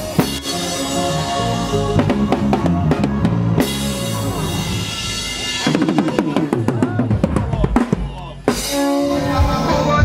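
Drum kit played live in busy grooves and fast fills, kick and snare strokes close together, over sustained pitched instruments; everything breaks off briefly about eight and a half seconds in and comes back with a hit.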